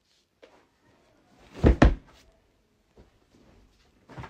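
Two quick, heavy thumps close together about a second and a half in, with a few faint knocks before and after.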